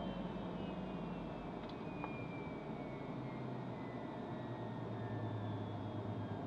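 An Eclipse 500 jet's twin Pratt & Whitney PW610F turbofans winding down, heard inside the cockpit: a whine that slowly falls in pitch over a steady rumble.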